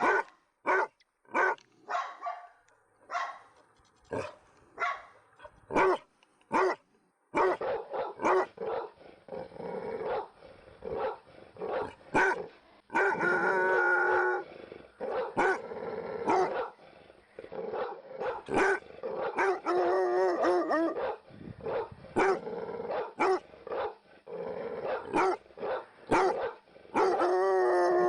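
Dogs barking: single sharp barks with short gaps for the first seven seconds, then denser barking over a steady background, with a few longer drawn-out calls mixed in.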